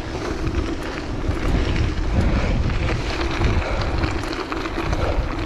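Wind buffeting the microphone over a steady rolling rumble of tyres on gravel, with scattered small clicks and pops of loose stones.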